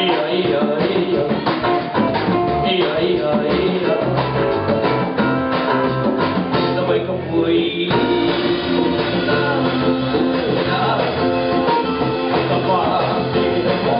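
Live band playing: guitar, electric bass, drum kit and a pair of congas. The music changes abruptly about eight seconds in.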